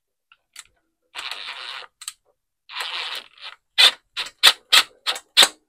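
Scraping and handling noises as bolts are fitted into a small engine, followed near the end by a run of six sharp clicks, about three a second.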